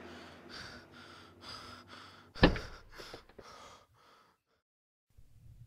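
A woman breathing hard in short gasps, about two a second. A sudden thump comes about two and a half seconds in, and the gasping stops near the four-second mark.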